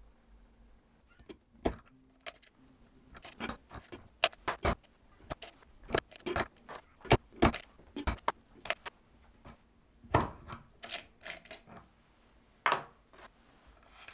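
Light metallic clicks and clinks, irregular and sharp, from the small stainless-steel and brass combination-ring pocket safe as it is handled and set into a steel block held in a vise.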